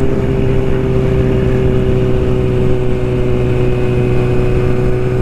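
Yamaha R6's inline-four engine with an aftermarket exhaust running at steady revs while cruising in sixth gear.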